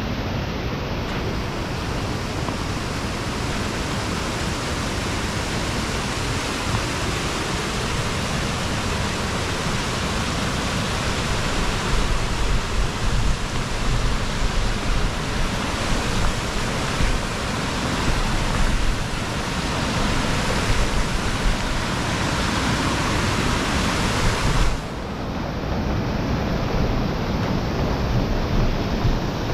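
Wind rushing over the camera microphone, loud and steady, with uneven low rumbling buffets through the middle stretch. Near the end the hiss suddenly loses its top end and turns duller.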